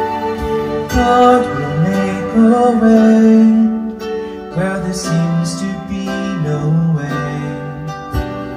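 A woman singing a slow worship song into a handheld microphone over a backing track with guitar.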